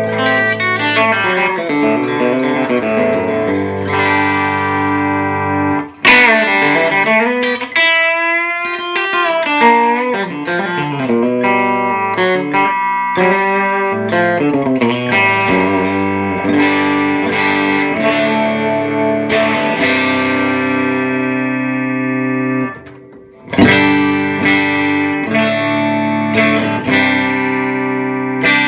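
Electric guitar played through a Longbeard Lil' Jake hand-wired combo amplifier: ringing chords and single-note lines, some notes bent and wavering. The playing stops for a moment twice and comes back in with a loud strum each time.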